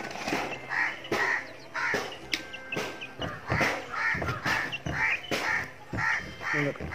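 Crows cawing over and over, about two caws a second, with a short break a little before the middle.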